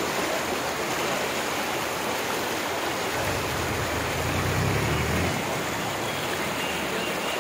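Brahmaputra floodwater rushing fast over a road, a steady churning wash of turbulent water. A low rumble comes in under it for a couple of seconds midway.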